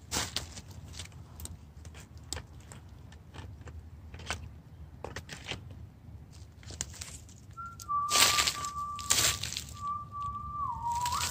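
Crunching and rustling of dry leaves and crusted snow under bare feet and hands, in irregular steps. About two-thirds of the way in a person starts whistling one long held note, which drops lower near the end.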